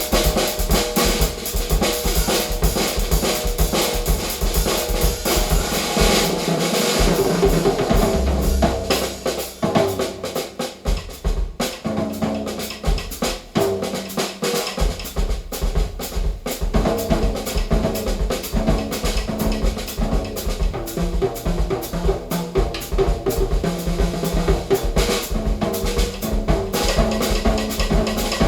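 A drum-kit percussion track played loudly through a hi-fi speaker system of 18 Sound midwoofers, Heil ESS AMT-1 tweeters and two REL S/812 subwoofers, with dense kick, snare and rimshot hits. The deep kick drum drops out for several seconds about a third of the way in, then comes back.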